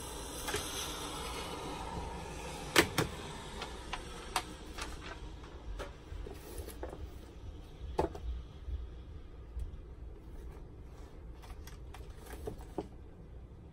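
Desk items being handled: a rustle, then sharp knocks and clicks as a pencil case and a calculator are set down on a hard desk and a ring binder is opened. The loudest knock comes about three seconds in, another about eight seconds in, with lighter taps between.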